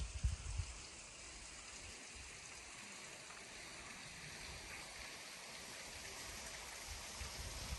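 Soft, steady outdoor hiss, with brief low rumbles on the microphone in the first half-second and again near the end.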